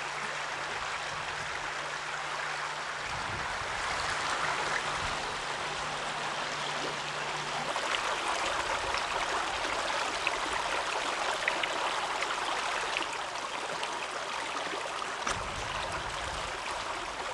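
A stream of running water flowing steadily, with a few faint ticks. A low steady hum sits under it and stops about halfway through.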